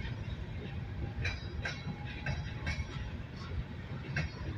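Empty open-top rock cars of a freight train rolling past: a steady low rumble with sharp clanks and clicks every second or so, irregularly spaced.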